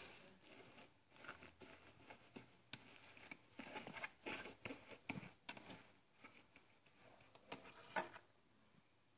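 Faint, irregular handling sounds: soft clicks and rustles as magnetic slime is worked with a magnet. The sharpest click comes about eight seconds in.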